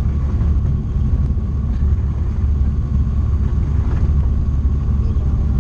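Tecnam P2002JF light aircraft's Rotax engine and propeller running steadily at low power, heard inside the cockpit as an even low drone.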